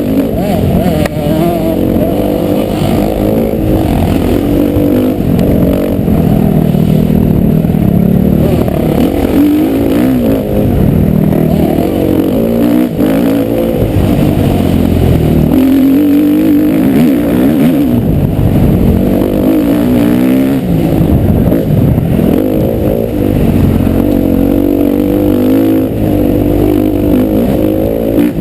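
Motocross bike engine revving hard, its pitch rising and falling over and over as the throttle is opened and shut.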